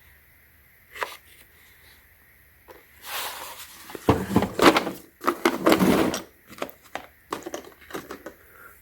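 Metal taps, dies and holders being handled in a plastic carry case. There is a single click about a second in, then about three seconds of rattling and scraping, then a run of light clicks.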